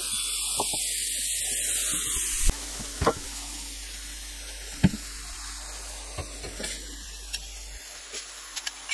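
Smash-burger patties sizzling on a flat-top griddle, cutting off abruptly about two and a half seconds in. After that come scattered light knocks and taps.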